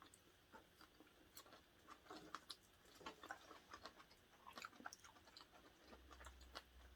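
Faint close-up chewing and mouth sounds: irregular small wet clicks and crunches as food is eaten.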